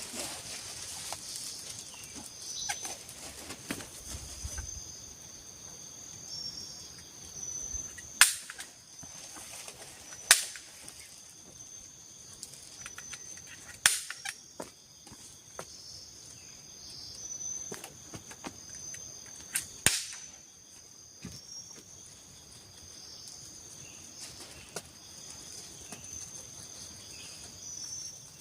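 Four loud, sharp knocks of tool strikes on timber during shelter building, spaced several seconds apart, with fainter knocks between them. A steady high-pitched chirring of forest insects runs underneath.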